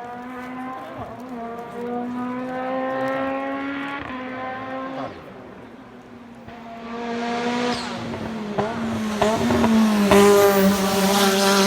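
Race car engine held at high revs and climbing in pitch, with a brief break at a gear change about four seconds in. It fades around the middle, then grows louder again and is loudest near the end.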